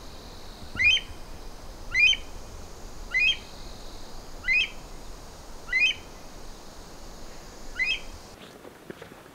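A bird calling: a short, sharp note that rises quickly in pitch, repeated six times about a second apart, with a longer gap before the last one.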